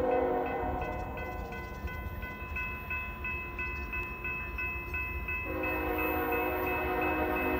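Diesel locomotive's multi-chime air horn sounding for a grade crossing: it breaks off about half a second in and starts again with a long blast about five and a half seconds in. Throughout, a crossing warning bell rings about three times a second over a low rumble.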